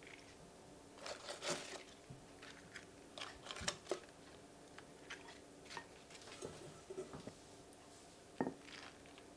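Crisp cos lettuce leaves rustling and crackling as they are handled and laid one by one on a ceramic plate, in short scattered bursts. One sharper crunch or tap near the end is the loudest sound.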